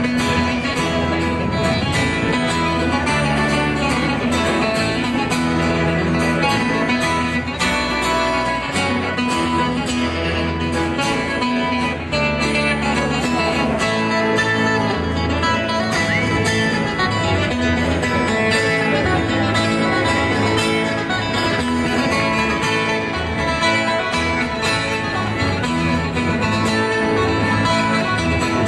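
Live folk band playing an instrumental tune: a fiddle over strummed acoustic guitars and electric guitar.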